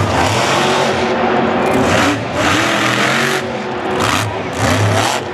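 Xtermigator monster truck's engine revving hard in repeated bursts, loudest about two to three and a half seconds in.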